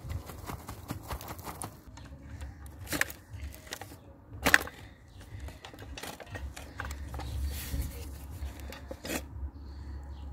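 Handling noise of toys being moved over gritty dirt: scattered clicks and scrapes, the sharpest about three and four and a half seconds in, over a low rumble.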